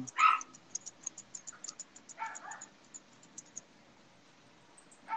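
Grooming scissors snipping through a poodle puppy's coat: a run of light, rapid clicks that stops about three and a half seconds in, with a short vocal sound about two seconds in.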